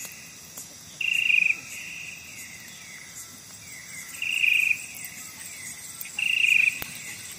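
An insect, likely a cricket, calling in three short, loud bursts about half a second long, spaced two to three seconds apart, over a faint steady background of other night insects.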